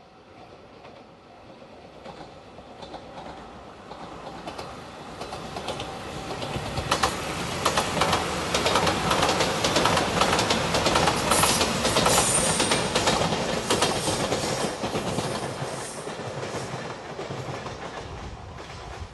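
JR Shikoku Shiokaze limited express, the white Anpanman train, passing by. It swells from a distant rumble, is loudest about halfway through with the wheels clacking over the rail joints, then fades away.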